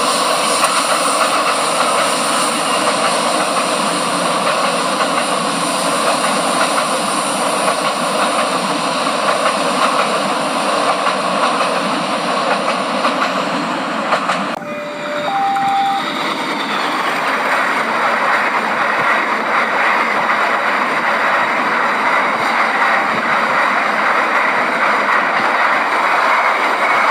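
A train running along the track, a steady rail noise throughout. About halfway the sound breaks off abruptly and two short tones sound, the second higher, before the train noise carries on.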